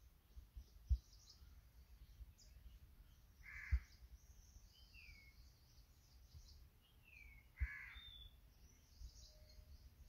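A crow cawing twice, each a short harsh call, about four seconds apart, over steady high twittering of small birds and two short descending whistled calls. A few low thumps on the microphone are the loudest sounds.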